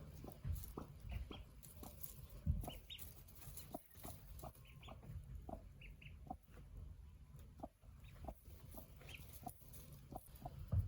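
Broody hen clucking softly and repeatedly, with short high peeps from newly hatched ducklings in between.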